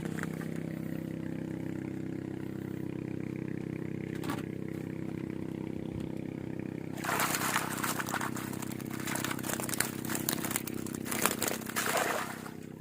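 A steady low engine drone throughout, joined from about seven seconds in by loud crackling, rustling handling noise that stops shortly before the end.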